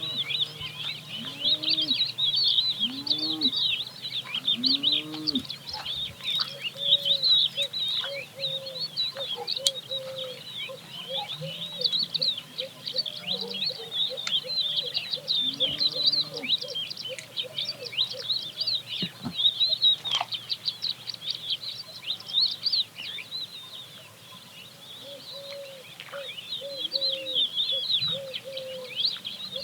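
A dense chorus of many small birds chirping, with cows lowing now and then beneath it.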